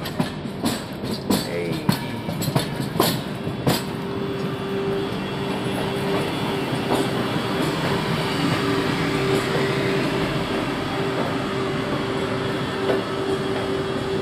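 Passenger train's wheels running over the track through a station yard, heard from aboard: a quick run of sharp clacks over points and rail joints in the first few seconds, then a steady rumble with a high, steady whine.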